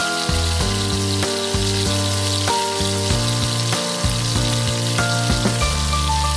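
Tomato and chickpea sauce sizzling in a frying pan, a steady hiss. Background music with a bass line plays along with it.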